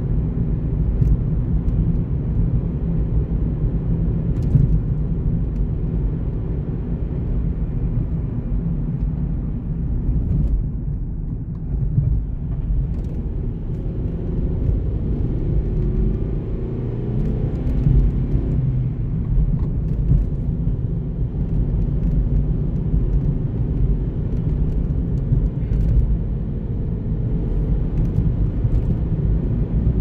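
Car driving along a road: a steady low rumble of tyre and engine noise.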